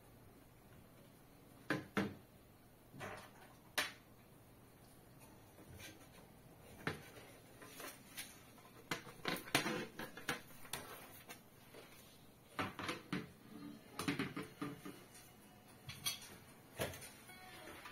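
Plastic parts of an LED ceiling light being handled and fitted together: irregular clicks, knocks and light rattles, busier in the second half.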